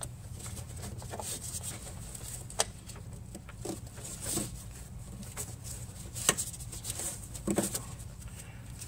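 Hands handling a rubber hose around an engine bay: scattered light clicks, taps and rubbing as the hose is routed along the intake manifold, over a steady low hum.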